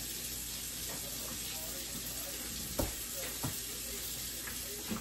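Water running from a kitchen tap into the sink as things are washed, a steady hiss with a few light knocks of items against the sink, twice near the middle and once at the end.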